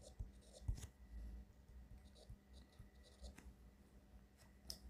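Faint, scattered taps and scratches of a stylus writing short strokes on a tablet screen.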